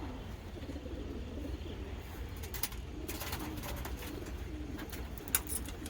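Racing pigeons cooing in low, wavering warbles, with a few sharp clicks scattered through.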